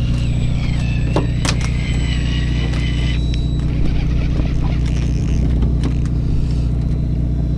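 Steady low drone of the fishing boat's engine, with an electric fishing reel whining as it winds in line for about the first three seconds, then stopping. A few sharp clicks from handling the reel about a second in.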